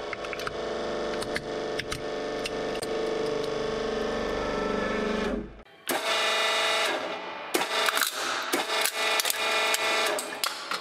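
Hydraulic press running with a steady hum while its ram crushes a plastic toy ambulance, with sharp cracks of breaking plastic. After a brief drop about five and a half seconds in, a second plastic toy cracks and crunches in a dense run of snaps under the press.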